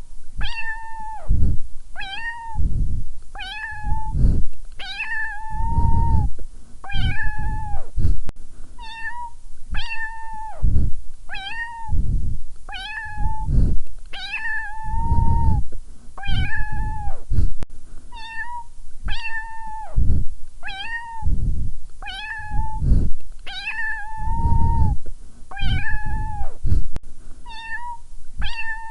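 Little cat meowing over and over, a bit more than one meow a second, each a short rising-and-falling call, with an occasional longer drawn-out meow.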